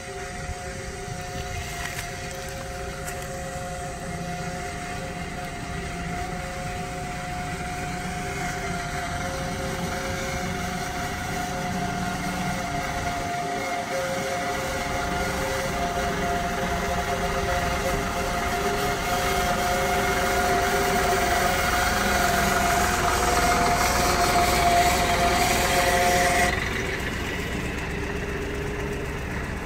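Diesel engines of a farm tractor and a JCB backhoe loader working under load as the sugarcane-laden trolley is hauled and pushed up the track: a steady engine drone that grows louder as they come close and drops sharply a few seconds before the end.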